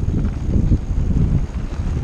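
Wind buffeting the microphone of a camera carried by a mountain bike rider at speed: a loud, continuous, gusty low rumble.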